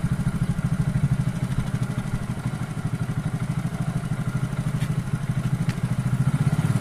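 Motorcycle engine running steadily at idle, its exhaust pulses blowing into a balloon held over the end of the silencer pipe.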